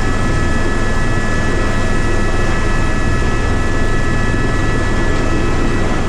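Rescue helicopter at close range: loud, steady rotor and engine noise with a low throb and a steady high whine over it.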